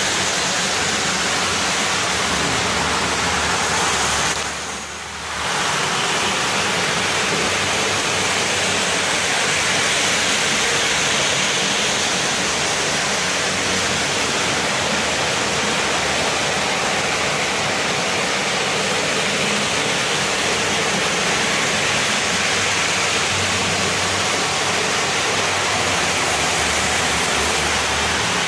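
Many electric model trains running at once, their wheels on the rails and motors making a steady rushing whir, with some low hum underneath. The noise dips briefly about four seconds in.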